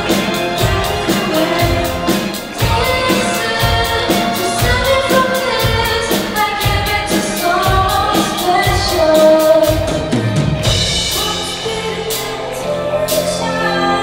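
Live band playing a pop song: two girls singing into microphones over a steady drum-kit beat, electric guitars and keyboards.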